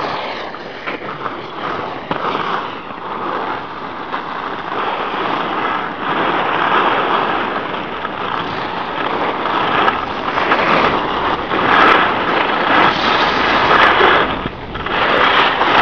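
Skis sliding and scraping over packed snow on a downhill run: a steady rushing hiss that swells louder about ten to fourteen seconds in.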